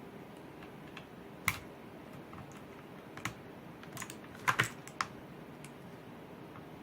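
A few scattered sharp plastic clicks and taps from a switch-puller tool gripping and working at a switch on an ABKO Hacker K645 mechanical keyboard. The louder ones come about a second and a half in and as a quick double click about four and a half seconds in.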